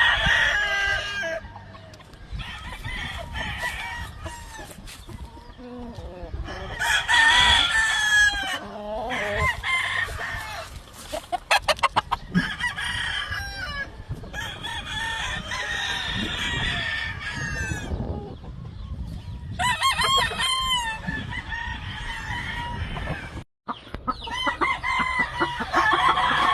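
Gamefowl roosters crowing over and over from several spots, in bouts through the stretch, with clucking between the crows.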